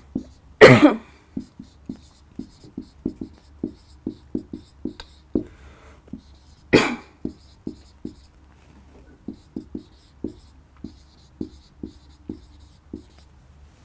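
Dry-erase marker writing on a whiteboard: a run of short strokes and taps of the tip, with two louder short sounds about a second in and about seven seconds in.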